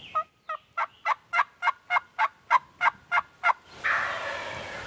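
A run of about a dozen turkey yelps from a hunter's call, about four a second, then, a little before the end, a wild turkey tom gobbling in answer with a long rattling gobble, the loudest sound.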